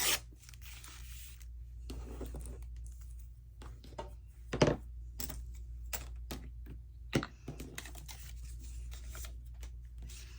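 Paper being handled on a tabletop: short rustles and slides of paper pieces with several sharp taps and clicks, the loudest about halfway through and again a little later, over a steady low hum.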